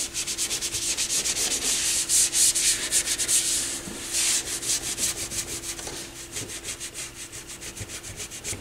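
Cloth rubbing quickly back and forth over the top plate of a Technics SL-23 turntable, wiping off a coat of grime. The strokes are louder in the first half and softer later, over a faint steady hum.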